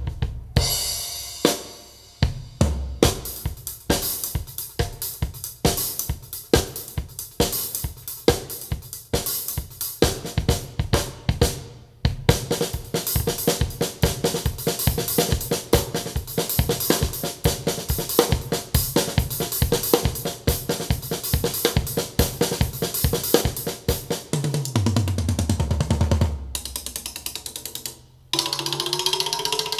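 Drum-kit music with kick, snare, hi-hats and cymbals played through a woofer driver whose torn foam surround has been patched with layers of tissue paper; the owner feels it still seems to have problems. The beat drops out briefly twice.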